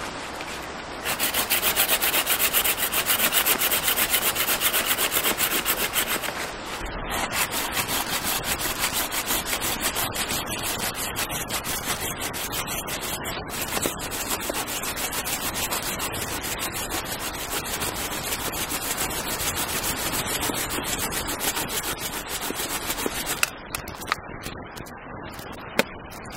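Hand saw cutting through a fallen branch in fast, steady back-and-forth strokes. The strokes are loudest for the first few seconds and stop a few seconds before the end, followed by a couple of sharp knocks.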